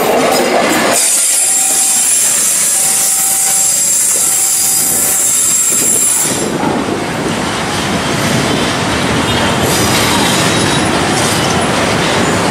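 Passenger train coaches passing close, their steel wheels squealing on the curving track with a high, steady squeal. About six seconds in the sound changes to a duller, even rumble as the train runs on away.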